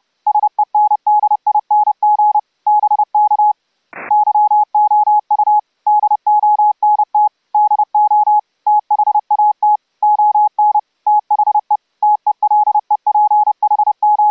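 Morse code sent as an audio tone of about 840 Hz from a sine-wave generator: audio-frequency CW (AFCW) keyed from paddles to feed the transceiver's transmit audio. It runs in quick strings of dots and dashes with short gaps between characters. A single click comes about four seconds in.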